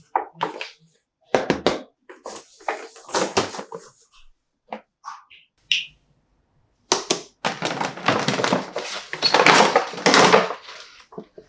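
Hard plastic toy parts being handled: a run of short knocks and clicks with gaps between them, then a longer, denser stretch of handling and rubbing noise about seven seconds in.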